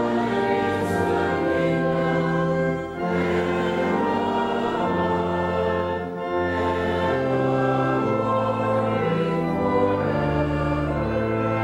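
Church organ playing a slow hymn in held chords with a moving bass line, with congregational singing.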